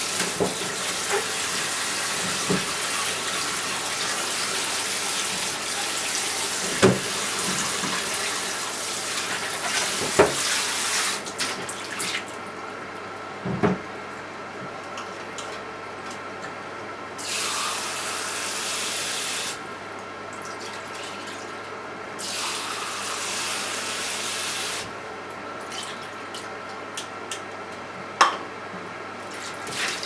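Tap water running into a kitchen sink, shut off about twelve seconds in, then run again in two short spells, with a few clunks of things being handled in the sink. Under it is the low steady hum of a Toshiba microwave oven running.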